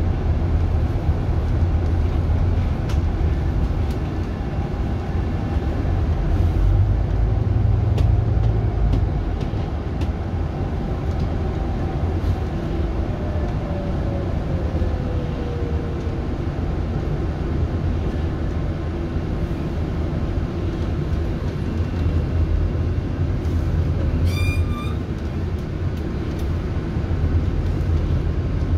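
Interior of a moving Scania GN 16 articulated city bus: a steady low drivetrain rumble and road noise. About halfway through, a whine falls in pitch, and a short high beep sounds near the end.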